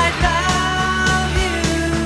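Background rock music with a steady drum beat, bass and a wavering vocal line.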